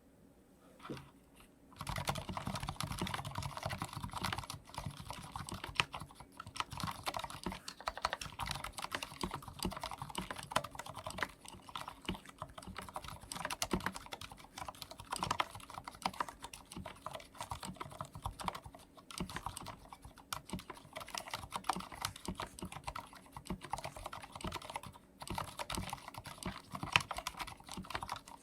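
Continuous fast typing on a Thinkway Tochef D&T full-size mechanical keyboard with Cherry MX Silent Red switches, the linear low-noise switch with built-in dampers. One lone keystroke comes about a second in, and steady typing starts about two seconds in.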